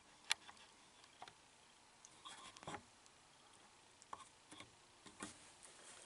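Faint scattered clicks and light scraping from handling a single pole light switch while a wire hook is fitted around its terminal screw, with one sharper click near the start.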